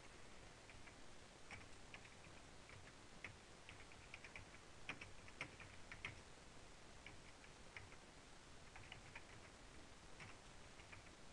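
Faint typing on a computer keyboard: irregular single keystrokes and short runs of clicks as a line of code is entered.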